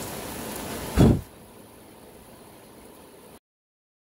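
Steady hiss of rain falling, broken about a second in by a single loud low thump, after which the rain is much fainter; the sound cuts off abruptly shortly before the end.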